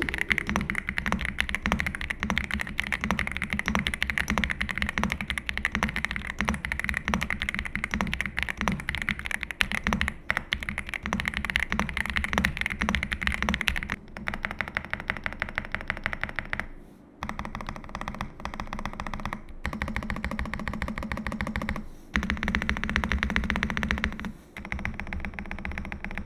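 Fast, continuous typing on two Ajazz AK870 gasket-mount mechanical keyboards in turn, as a typing sound test. One board has Jasmine switches and sounds deep and thocky; the other has lighter switches and sounds more clacky. After a short break about two-thirds of the way through, the typing takes on a different character.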